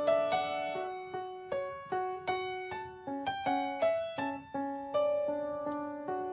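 Background music: a slow melody on a piano-like keyboard, single notes struck about two or three a second and left to fade, with a quicker run of notes midway.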